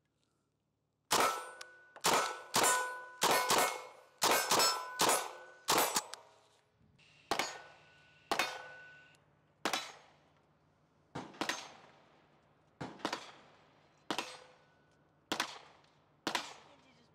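IWI Uzi Pro 9mm pistol fired in single semi-automatic shots. A quick string of about ten shots comes over five seconds, several followed by a brief metallic ring. Then a slower, slightly quieter string of about ten shots follows at roughly one a second.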